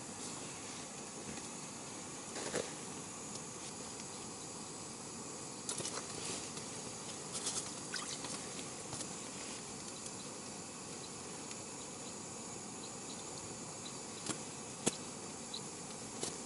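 Steady hiss with a few scattered small clicks and taps; the sharpest click comes near the end.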